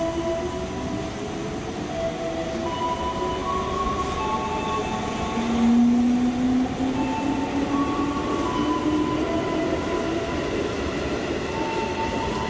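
KRL Commuter Line electric multiple unit pulling out and gathering speed. Its traction motors give a whine that rises in pitch, with higher tones shifting in steps, over the rumble of the wheels on the rails. It is loudest about halfway through.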